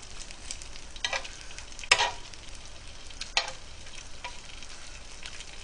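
Pork slices sizzling steadily on a hot griddle, with a few sharp clicks of metal tongs against the griddle as the meat is turned, the loudest about two seconds in.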